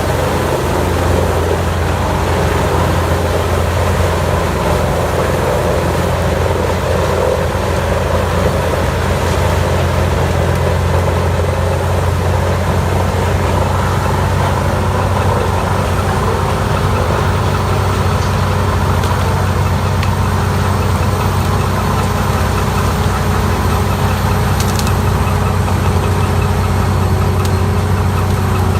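CBI 6800CT land-clearing wood grinder running steadily with a constant deep diesel engine drone while it chews through logs.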